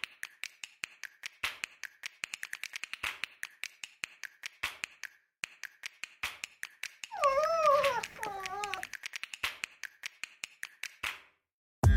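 An uneven run of light clicks, several a second, and from about seven seconds in a dog whining, twice briefly, its pitch sliding up and down. The clicks stop shortly before the end.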